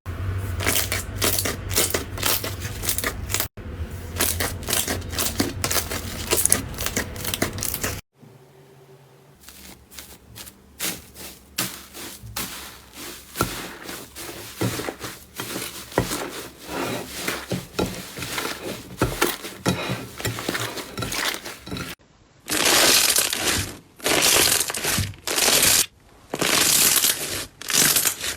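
Crunchy slime being squeezed and pressed by hand, crackling and popping densely. It changes twice, suggesting separate clips: it turns quieter and sparser about a third of the way in, and near the end gives way to longer, louder rasping bursts.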